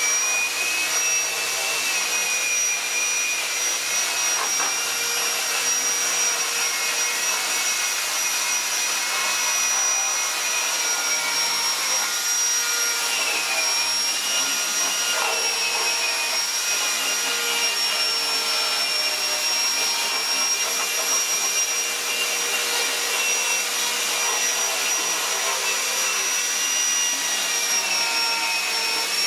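Handheld electric rotary tool running at high speed with a steady high whine, its burr bit grinding into wood; the pitch wavers and dips slightly now and then as the bit loads up in the cut.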